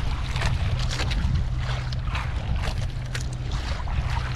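Water lapping and knocking against the hull of a small wooden outrigger boat, with irregular short slaps over a steady low hum.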